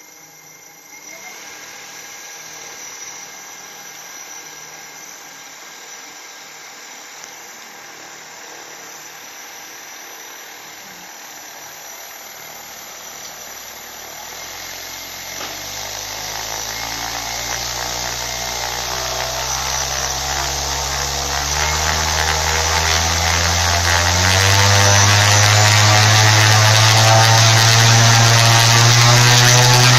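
Homemade 320 kV brushless outrunner motor turning a 21x10 propeller. It spins slowly and quietly at first, then is throttled up in steps from about halfway through, each step raising the pitch and loudness. It ends in a loud, steady propeller drone at high power.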